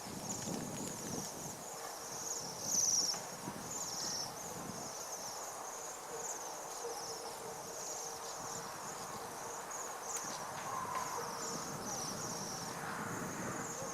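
A flock of small birds calling steadily with high, thin, trilling chirps. A brief louder low sound comes about three seconds in.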